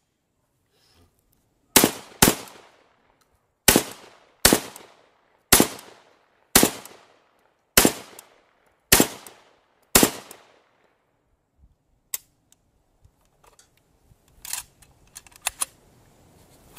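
A string of nine gunshots, each echoing away. The first four come as two quick pairs, then roughly one a second, stopping about ten seconds in. A few faint knocks and rustles follow near the end.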